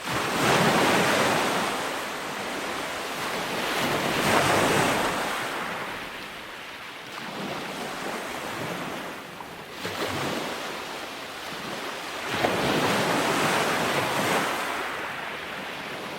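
Ocean surf on a beach: waves breaking and washing in with a rushing hiss that swells and ebbs, about four surges over the span.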